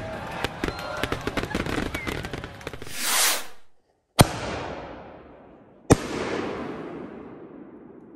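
Fireworks: a dense crackle of fuse sparks and a rising whoosh, then two sharp bangs from a T Sky canister shell, the second about two seconds after the first, each trailing off in a long echo.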